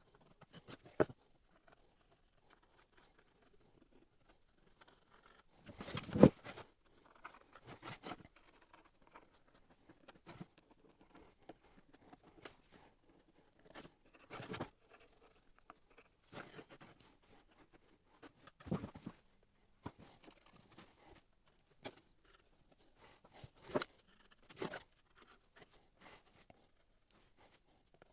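Scattered knocks, taps and scratching of a piece of wood being handled and worked by hand, the loudest knock about six seconds in.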